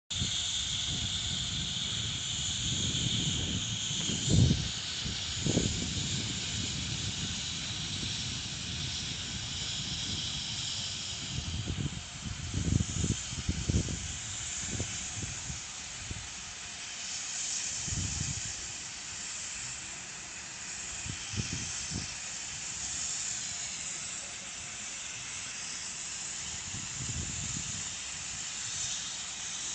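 Steam locomotive BDZ 46.03 hissing steam steadily, with irregular low rumbles and thumps, the loudest about four seconds in and again around twelve to fourteen seconds.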